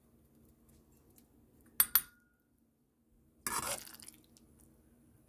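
A metal spoon clinks twice against a stainless-steel pot about two seconds in, the second clink ringing briefly. About a second and a half later it scrapes and clatters against the inside of the pot for about half a second.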